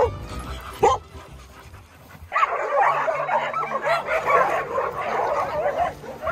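Several dogs yipping and barking together in a dense, excited chorus that starts about two seconds in. It is preceded by a couple of single short yelps.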